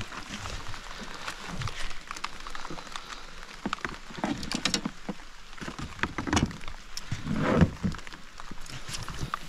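Rain pattering steadily, with several louder low thuds in the second half.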